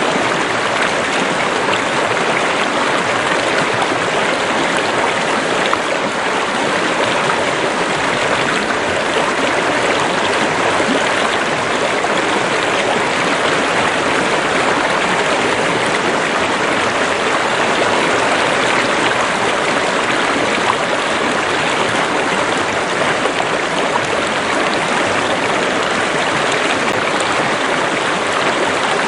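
Water running steadily in a stream or river: a constant, even rushing with no breaks.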